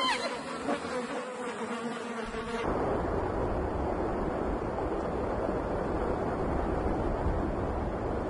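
Flies buzzing around a lion's head in a steady drone. About two and a half seconds in, this gives way to a steady rushing noise.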